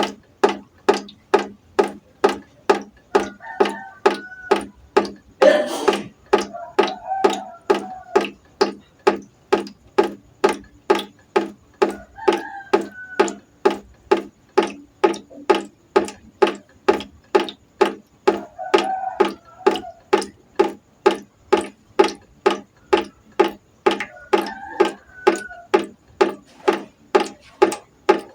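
Water drops falling into a pot in a steady, even rhythm, about one and a half drops a second, each a sharp plink with a short ring. One louder, noisier hit comes about six seconds in.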